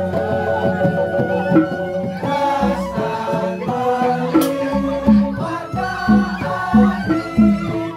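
Balinese gamelan music for a joged dance: metallophone or xylophone melody over sustained ringing tones, with kendang hand-drum strokes that settle into a steady beat of about two a second in the second half.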